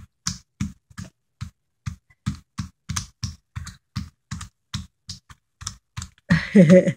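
A small child's hands patting and slapping finger paint on paper in a steady run of short pats, about three to four a second. Near the end a short vocal sound breaks in.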